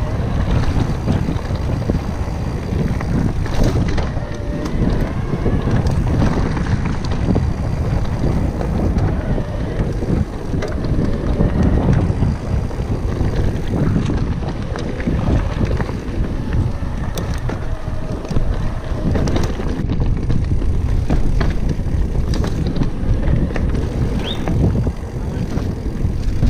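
Wind buffeting the camera microphone over the constant rattle and clatter of an electric mountain bike and its tyres running fast over rocky, gravelly singletrack, with many small knocks from the trail.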